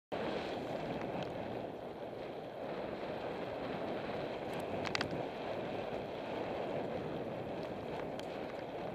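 Mountain bike ridden fast along a dirt singletrack: a steady rush of wind on the camera's microphone over the rolling of the tyres, with a few sharp clicks and rattles from bumps around the middle.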